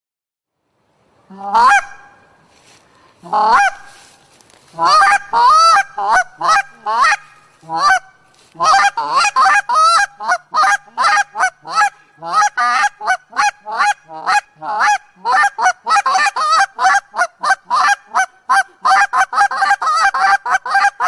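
A flock of geese honking. Single calls start about a second in, then grow denser into a continuous chorus of overlapping honks from about eight seconds on.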